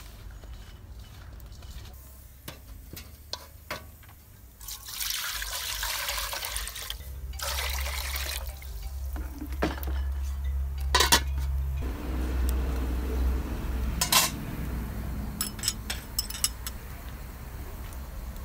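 Water pouring and splashing into a large metal cooking pot for a few seconds, starting about five seconds in, followed by a few sharp clinks of metal against the pot.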